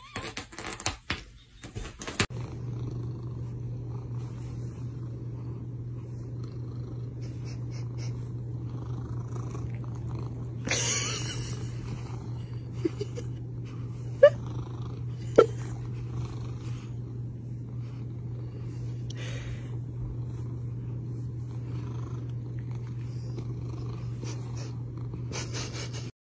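Orange-and-white domestic cat purring, loud and steady, from about two seconds in. There is a brief rustle partway through and a couple of small clicks.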